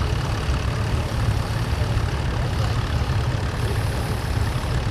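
Vintage tractor engine running steadily with a low rumble.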